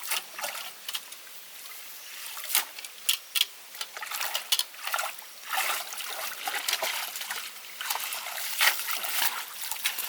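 Water splashing and dribbling in quick, irregular bursts, with a few sharper splashes mixed in.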